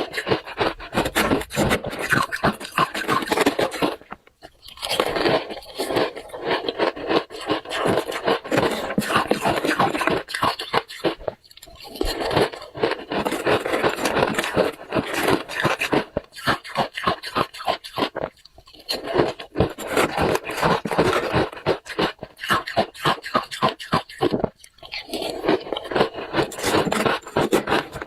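Close-miked chewing of hard, crunchy red ice: dense runs of rapid crunches, broken four times by brief pauses.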